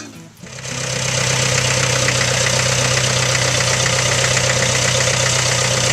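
Thomas band sawmill running: a steady engine drone that comes in about half a second in.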